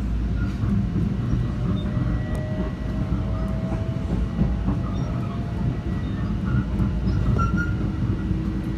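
Metro-North commuter train running along the tracks, heard from inside the passenger car: a steady low rumble of wheels and car body, with a faint whine that comes and goes.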